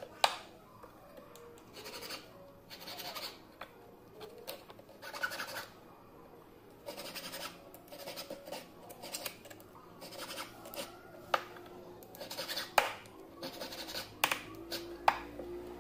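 Small hand file scraping across a silver ring in short, repeated strokes, shaping the ring's faceted pineapple pattern, with a few sharp clicks of the file knocking the metal. Faint music comes in near the end.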